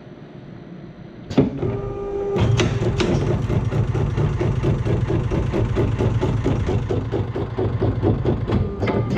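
ODM Super Sewer automatic book sewing machine running a sewing cycle as sheets are fed through. There is a sharp clack about a second and a half in; from about two and a half seconds the machine runs with a rapid, even mechanical clatter of several strokes a second over a steady hum.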